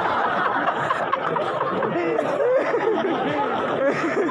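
Audience laughing and chattering, many voices overlapping without a break.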